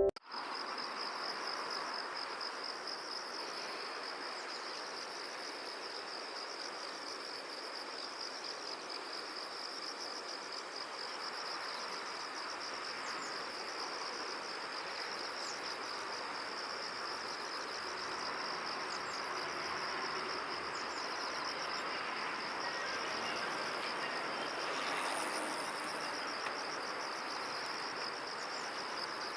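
Insects trilling: a steady high-pitched, finely pulsing chirring over a low background hiss.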